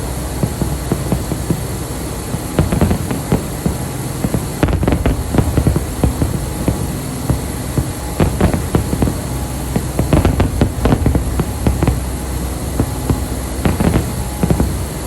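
Fireworks display going off: many irregular sharp cracks and bangs, some in quick clusters, over a steady background rumble.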